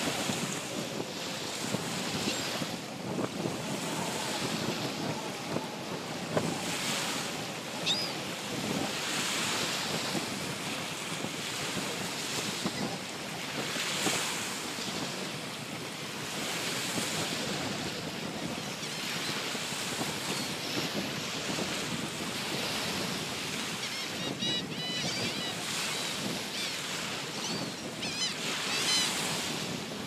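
Wind on the microphone over the wash of small surf, with gulls giving a few short, repeated high calls near the end.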